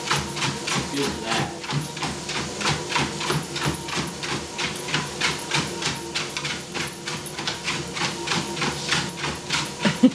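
Paws of a Rhodesian Ridgeback trotting on a running motorised treadmill belt: an even patter of about three or four footfalls a second over the treadmill's faint steady hum.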